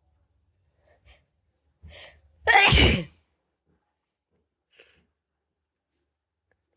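A person sneezes once, loudly, about two and a half seconds in, just after a short breath in.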